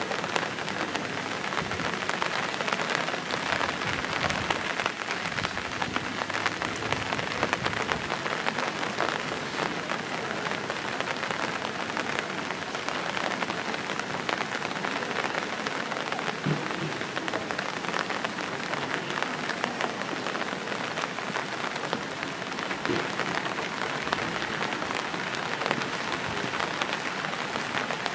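Steady rain falling: an even hiss made up of many fine ticks of drops, at a constant level.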